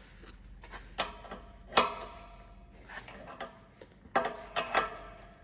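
Metal tool clinks as a 22mm crow's foot spanner is fitted onto the NOx sensor on the exhaust pipe: about six separate knocks, each with a short metallic ring. The loudest comes just under two seconds in, and a quick cluster of three follows near the end.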